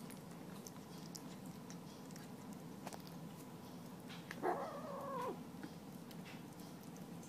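A kitten lets out one angry yowl of about a second, about halfway through, rising in pitch and then dropping. It is a protest at being disturbed while eating.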